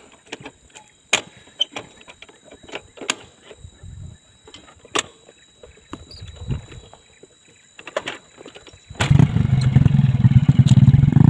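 Scattered faint clicks and knocks, then about nine seconds in a small engine abruptly comes in loud, running steadily at an even pitch.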